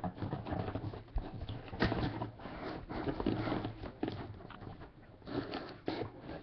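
Packaging of a sealed trading-card box being torn and opened by hand: irregular crinkling and rustling with scattered sharp clicks and snaps.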